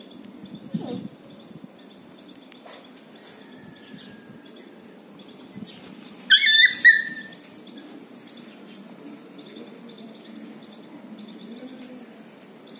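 A puppy giving two quick high-pitched yelps while playing, about six seconds in.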